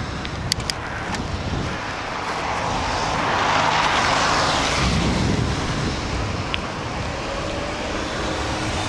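Steady wind rush on an action camera's microphone while cycling on a wet road. A car passes close about four seconds in, its tyres hissing on the wet asphalt as the noise swells and fades. A few sharp clicks sound near the start.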